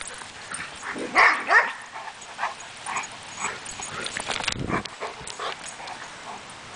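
A dog barking in a string of short barks and yips, the loudest two close together about a second in, then smaller ones roughly every half second.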